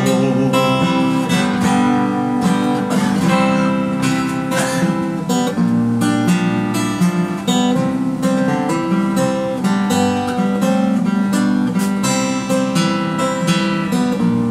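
Solo acoustic guitar playing an instrumental passage between verses, chords strummed in a steady rhythm.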